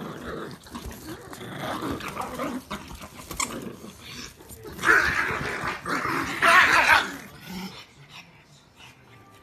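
Pugs growling in rough bursts while playing tug-of-war over a plush toy, loudest about five seconds in and again around six and a half to seven seconds, then easing off near the end.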